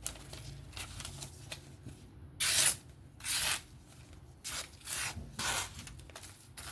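Folding knife's S90V factory edge slicing through paper in a series of short strokes, the loudest about two and a half seconds in.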